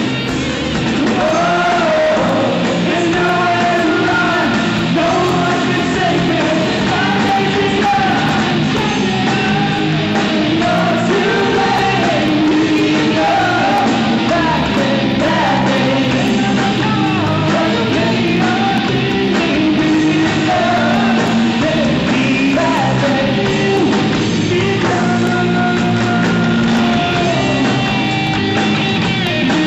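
Live rock band playing: a singer sings and shouts over guitars and a drum kit.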